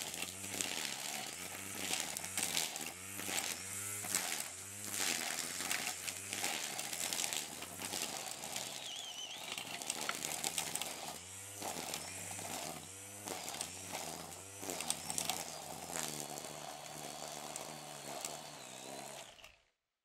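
Brush cutter's small engine running and revving up and down in repeated throttle surges, with a whine over it. It cuts off suddenly near the end.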